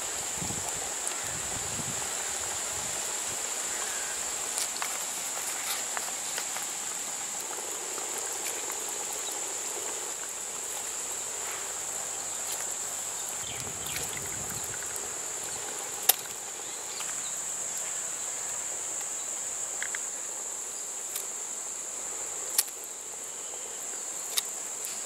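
Insects chirring in one steady, high-pitched drone, with a few sharp clicks and faint low thuds scattered through it.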